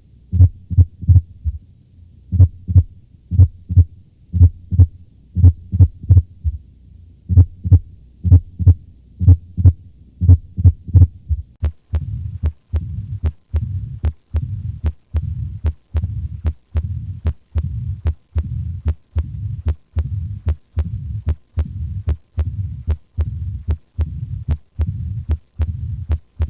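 Heart sounds heard through a stethoscope, beating steadily in lub-dub pairs about once a second. About 12 seconds in, the recording changes to a faster, even beat, about one and a half a second, with sound running on between the beats: a heart murmur.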